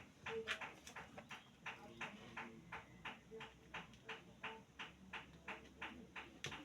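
Faint, regular ticking, about three ticks a second, with a few brief faint tones in between.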